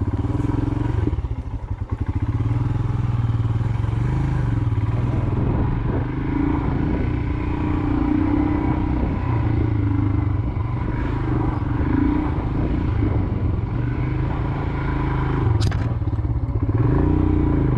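Royal Enfield Himalayan motorcycle's 411 cc single-cylinder engine running with a wavering pitch as it is ridden off-road. There is a sharp knock near the end.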